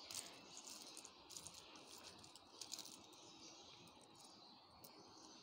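Faint clinking and jingling of small metal key rings and chains on resin keychains as they are handled. It comes in a few short bursts of crisp clicks in the first three seconds, then a lone click or two.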